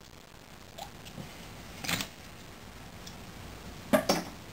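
Handling of a glass bottle: a few soft clicks, a brief hiss about two seconds in, and two sharp knocks near the end.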